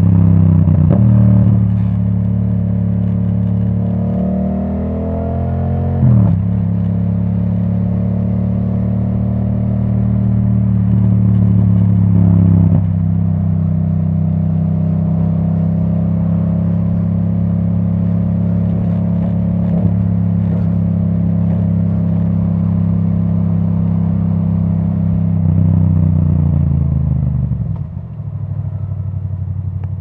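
2017 Yamaha MT-07's parallel-twin engine running through a custom Akrapovic titanium exhaust with its dB killer out, under way. The revs climb and drop sharply with upshifts about six and thirteen seconds in, hold steady at cruise, then fall away near the end.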